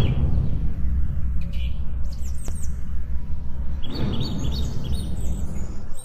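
Channel intro sound effect: birds chirping in short repeated calls over a steady deep rumble, with a whooshing swell at the start and again about four seconds in.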